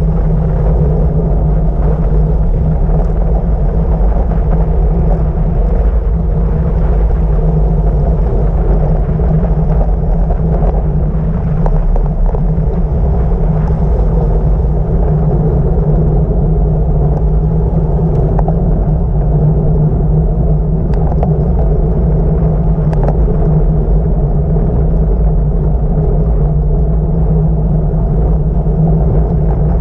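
Wind rushing over a handlebar-mounted action camera's microphone on a fast bicycle descent: a loud, steady rumble, with a few faint clicks.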